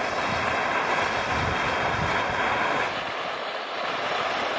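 Portable gas canister camping stove burning under a cooking pot: a steady hiss that dips slightly about three seconds in.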